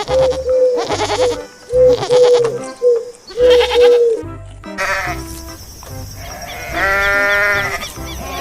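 Background music with a repeating beat, then a goat bleats once near the end, a single long call of about a second.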